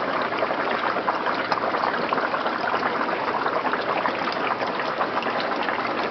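Water trickling and bubbling steadily, a dense run of tiny splashes at an even level.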